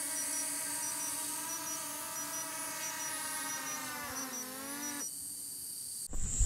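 DJI Mavic Pro quadcopter hovering with a steady propeller whine. About four seconds in, the pitch falls as it sets down and the motors spin down, stopping a second later. Just before the end, louder footsteps on a dirt trail start abruptly.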